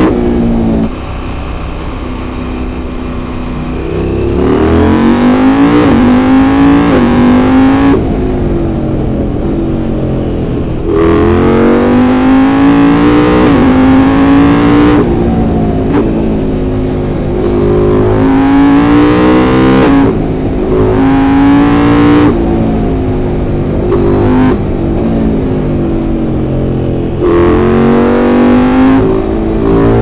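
KTM 890 SMT's LC8c parallel-twin engine under way: the throttle is shut for about three seconds near the start, then it pulls hard again and again, its pitch climbing and dropping back at each gear change.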